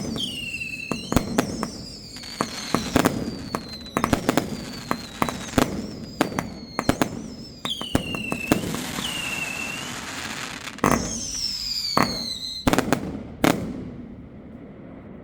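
Svea Bandit firework firing: a rapid run of sharp bangs mixed with whistling tones that slide down in pitch. The last big bangs come about 13 seconds in, and the sound then dies away.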